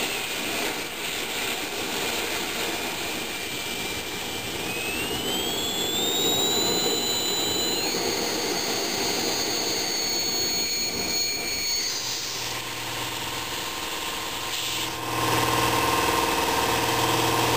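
Hago siphon oil burner firing on a test bench: a steady rushing roar of flame and atomizing air, with a whistle that rises in pitch about five seconds in and holds. The roar stops when the burner is shut off about twelve seconds in. About fifteen seconds in, a steady motor hum starts and runs on.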